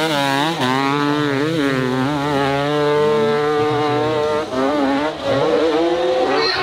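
Dirt bike engine revving hard under heavy throttle on a steep climb, its pitch repeatedly rising and falling, with brief drops about four and a half and five seconds in.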